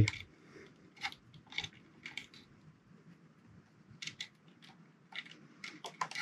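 Scattered light clicks and taps of small plastic parts and wiring being handled on an RC truck's chassis, a few at a time with short gaps, busier near the end.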